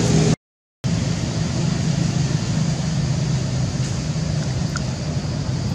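Steady, low rumbling outdoor background noise with no clear single source, dropping out to complete silence for about half a second near the start.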